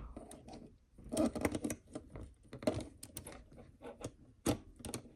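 Irregular light clicks and taps of small plastic and metal parts being handled as a 1:12-scale RC crawler's front axle housing is worked open.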